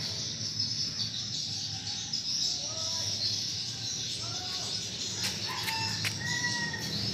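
Birds calling outdoors: scattered short whistled notes, then a longer call with a clear pitch near the end, over a steady high chorus of chirping.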